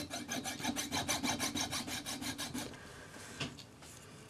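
Jeweller's saw cutting through a coil of 1 mm silver wire jump rings held against the bench peg, in rapid, even strokes that slow and fade after about two and a half seconds.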